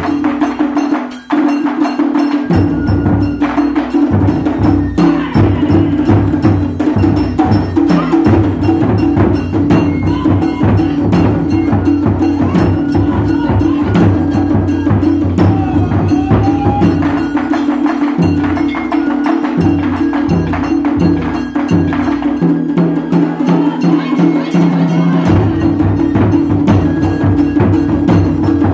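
Taiko ensemble playing: several large barrel drums struck hard with wooden sticks in a fast, driving rhythm, with a side-blown flute playing thin high notes over the drums. The drumming thins out briefly about a second in, then carries on.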